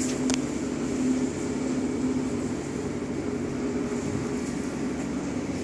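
Steady mechanical hum made of several held low tones, with a couple of light clicks near the start.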